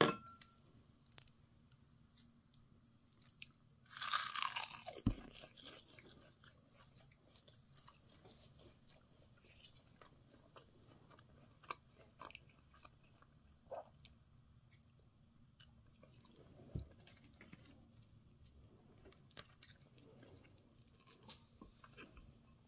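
Wooden spoon mixing rice with cockles and chives in a ceramic bowl: faint scattered scrapes, taps and sticky clicks. About four seconds in, a louder burst of noise lasting about a second.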